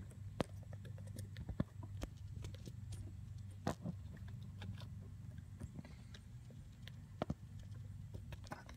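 Hands fumbling close to the microphone: irregular small clicks, taps and rubbing from fingers working car wiring and a small red plastic connector, over a steady low hum.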